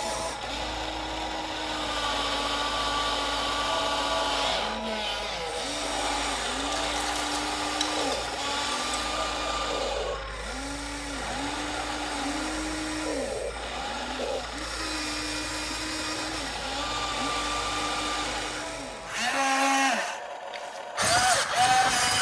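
Small electric motor of an RC excavator's hydraulic pump whining. The whine starts and stops again and again, rising in pitch as each movement starts and falling as it ends. The sound changes abruptly near the end.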